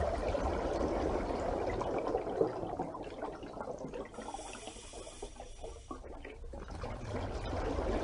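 Running water, a steady pouring or trickling sound, with a faint high ringing tone partway through.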